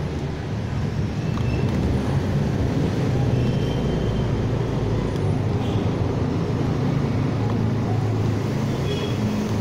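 Steady low rumble of motor vehicles, with no clear break or change.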